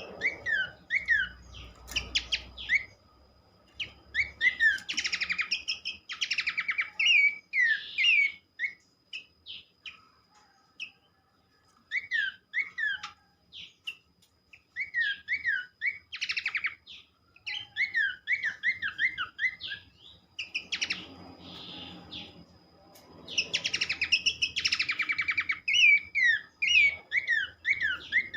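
Pelanduk semak (Horsfield's babbler) song: clusters of quick down-slurred whistled notes, mixed with buzzy rattling phrases, with two quieter pauses midway and about two-thirds through.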